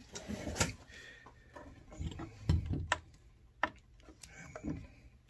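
Hands moving camp-stove gear about on a wooden tabletop: a short rustle at the start, then a handful of separate clicks and knocks.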